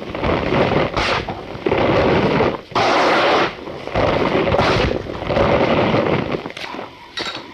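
Cornstarch powder being squeezed and crushed by hand, a dense squeaky crunch repeated in strokes about once a second. Near the end the crunching gives way to a few light clinks.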